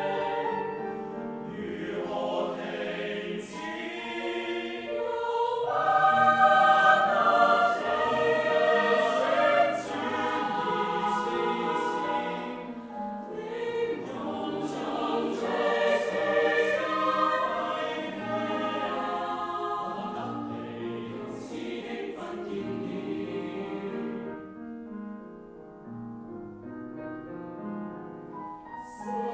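Choir singing a contemporary song in Cantonese, many voices holding and moving chords together; it grows softer for a few seconds near the end, then swells again.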